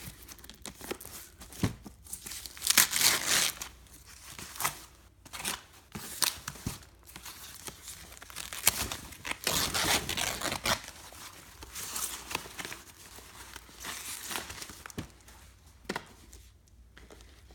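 Packaging being handled and torn open: irregular crinkling and tearing, loudest about three seconds in and again about ten seconds in.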